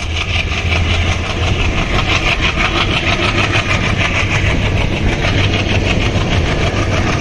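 Diesel locomotive engine working hard under power, heard from a coach window further back in its train: a loud, steady drone with a fast, even pulsing.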